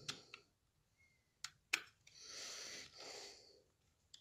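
A few faint, sharp clicks of a screwdriver working the terminal screw of a contactor coil, the loudest about a second and a half in, followed by two soft breaths.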